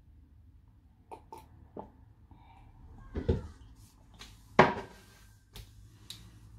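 Swallowing and mouth noises as a woman drinks water from a plastic cup: a few soft clicks, then short, sharper sounds, the loudest about four and a half seconds in.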